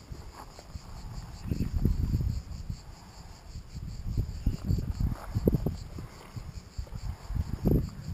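Wind buffeting the microphone in irregular gusts, over a steady, high chorus of cicadas.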